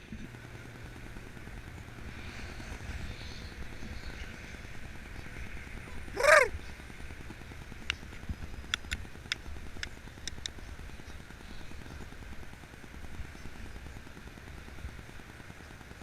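A Canada goose gives one loud honk about six seconds in, over a steady low rumble. A handful of sharp clicks follow a couple of seconds later.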